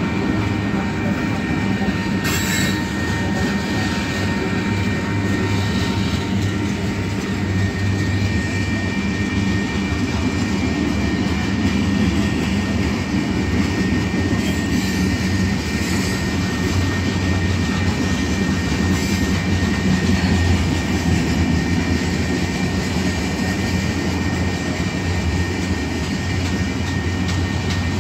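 Freight train led by a Union Pacific AC6000 diesel locomotive rolling past at slow restricted speed into the yard. The locomotive's steady low drone runs under a steady high wheel squeal, with a few sharp clicks of wheels over rail joints.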